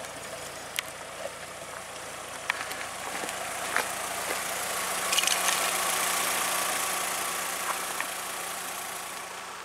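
Volkswagen Polo engine idling steadily after being revved, with a few light clicks over it. The sound fades out near the end.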